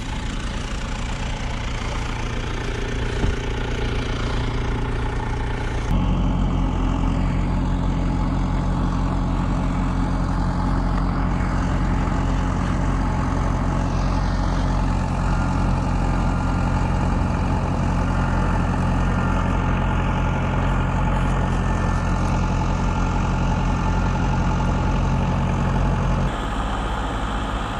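Truck engine running, then revved up about six seconds in and held at steady high revs under load for some twenty seconds before dropping back near the end, as the truck works to climb out of a snowy ditch.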